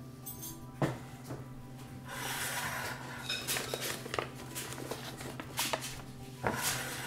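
Kitchenware being handled on a tabletop. A bowl knocks down about a second in, then crumpled paper rustles inside a ceramic pot, with small clicks and scrapes and another knock near the end.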